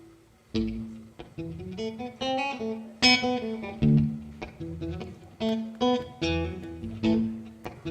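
Acoustic guitar played in a percussive style: a run of sharply attacked plucked notes and chords that starts about half a second in.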